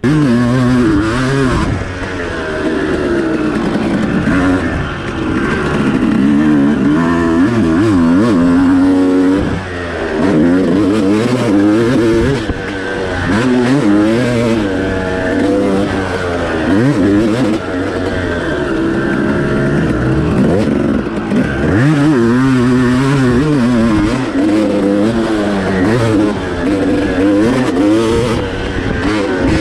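2003 Suzuki RM250 two-stroke dirt bike engine being ridden hard, revving up and dropping back over and over as it accelerates and shifts.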